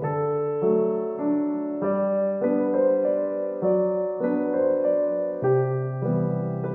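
Background solo piano music: a gentle piece with a steady stream of notes and chords.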